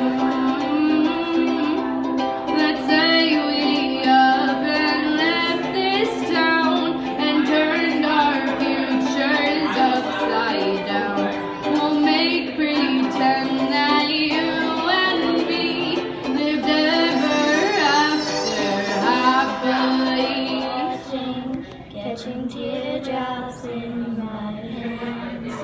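Girl singing with her own ukulele strumming: a gentle pop song with a steady strummed accompaniment. The singing and strumming die away near the end.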